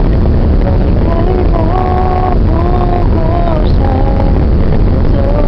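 Singing in slow, held notes over the steady, loud low rumble of a boat's engine and wind on the open deck.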